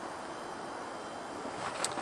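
Steady background hiss, with one brief click near the end.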